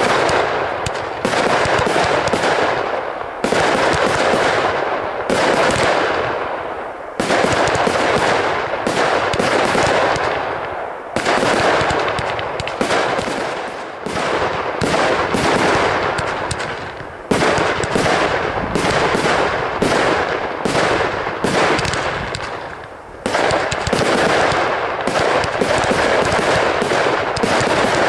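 Fireworks going off in a continuous barrage: rapid volleys of bangs and cracks as shots launch and burst. The sound comes in waves, each starting suddenly and dying away over a few seconds.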